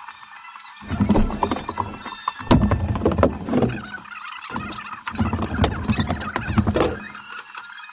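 Sped-up sound of drywall work, with sheets handled and moved: jumbled high, squeaky sounds and sharp knocks in quick bursts, starting about a second in and stopping about a second before the end.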